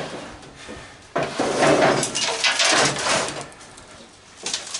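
Metal parts of an old microwave clattering and scraping as it is handled and worked on, in a rattling run of about two and a half seconds, with another short clatter near the end.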